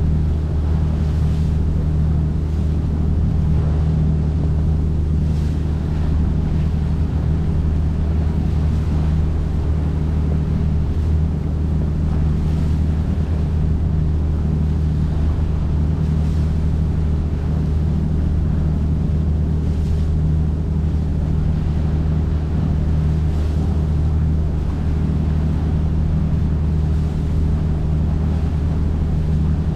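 Boat engine running steadily with an even low drone, with water and wind noise over it.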